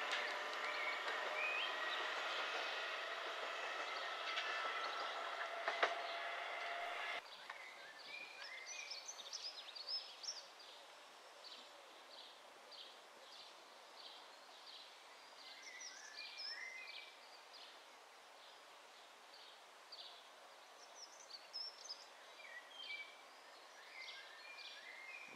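A Class 465 Networker electric multiple unit approaching, its traction equipment whining in several steady tones, with a sharp click about six seconds in. The sound cuts off abruptly about seven seconds in, leaving a quiet outdoor background with birds chirping in short bursts.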